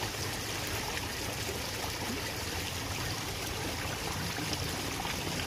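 Small stream flowing steadily, a continuous rush and trickle of water.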